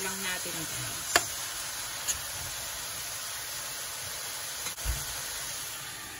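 Pork strips and onion sizzling in a hot frying pan, a steady hiss, with a few light clicks of the plastic spatula against the pan, about a second in and again at two seconds.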